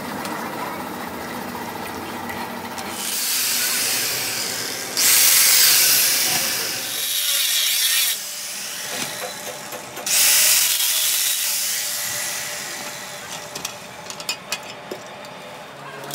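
Angle grinder grinding the steel webs of a stack of truck brake shoes, biting in twice for a few seconds each with a loud, hissing grind of metal on the disc. A steady low hum comes before it, and a few sharp metallic clicks near the end.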